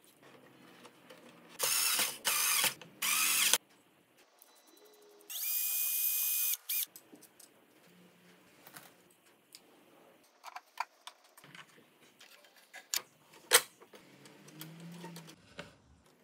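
Small electric motor run in three short bursts, then a longer run of just over a second with a steady whine, a few seconds in. After that come light metal clicks and taps as small parts are fitted by hand.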